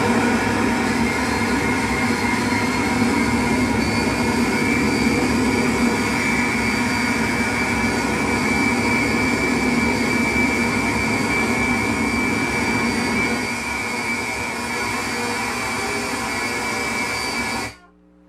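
Live electronic noise drone from a table of effects pedals: a dense, steady wash with many held tones, cutting off abruptly just before the end.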